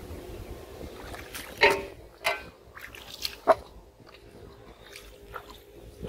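A few sharp knocks and clanks of a wooden hand reel of fishing line against a stainless steel bowl, four hits over about two seconds with a brief metallic ring.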